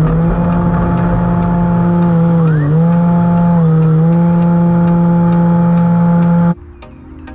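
E-flite Timber RC plane's electric motor and propeller running at high throttle on takeoff and climb-out, a loud steady drone whose pitch dips briefly about two and a half seconds in. The sound cuts off suddenly near the end.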